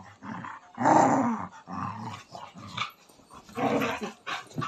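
Dog growling and grumbling in a run of short vocal bursts, the loudest about a second in: an angry, complaining growl.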